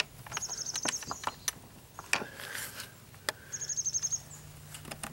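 Metal slide-bolt latch on a wooden coop door being worked back and forth, giving a string of sharp metallic clicks and knocks. Twice a short, rapid high trill sounds, about half a second in and again near four seconds.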